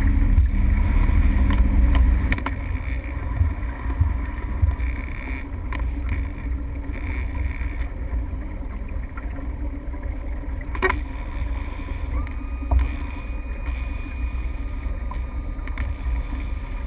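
Motorboat running with a steady low rumble of engine, water and wind on the microphone. The engine hum drops out and the sound gets quieter about two seconds in, as the boat eases off. A single sharp click comes about eleven seconds in.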